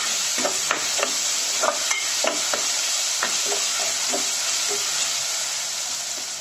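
Chopped tomatoes and onions sizzling in hot oil in an aluminium pressure cooker, stirred with a metal spoon that clicks and scrapes against the pot. The stirring stops near the end, leaving the steady sizzle.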